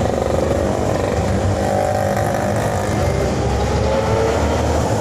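Steady running of a motor-vehicle engine, a continuous low rumble.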